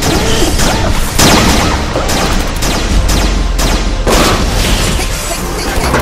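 Animated battle sound effects: a rapid run of explosions and blasts over a deep, continuous rumble, with a loud hit about a second in.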